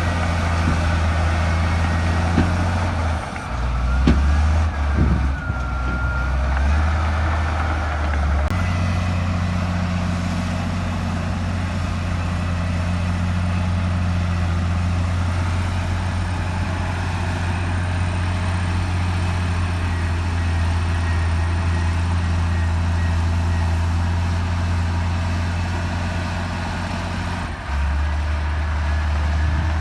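Heavy diesel engine of earthmoving machinery running steadily. Its note drops for several seconds about three seconds in, with a few knocks and a brief whine, then steadies again and shifts once more near the end.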